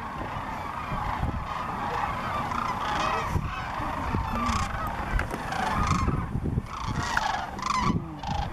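Large flock of sandhill cranes calling together, many overlapping calls at once.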